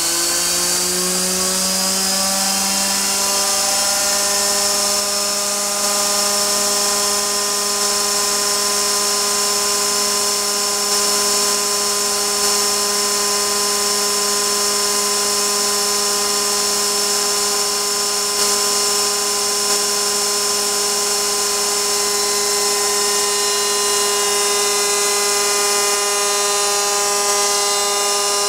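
Gorton 0-16A Super Speed vertical mill spinning a router bit at about 12,000 RPM while it roughs out Claro walnut. A steady high-speed whine with many overtones. Its pitch rises slightly over the first couple of seconds as the spindle finishes coming up to speed, then holds steady.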